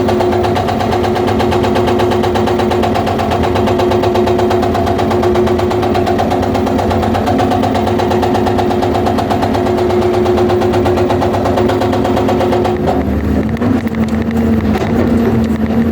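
Excavator's hydraulic breaker hammering rapidly on stone over the excavator's running engine. The hammering stops about three seconds before the end, and the diesel engine keeps running on its own.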